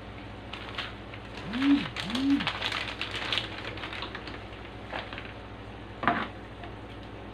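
Light rustling and clatter from seasonings and utensils being handled over a frying pan for a few seconds, with two short rising-and-falling low tones in the middle. Then two knocks, the louder just after six seconds in, as the slotted spatula is picked up against the pan.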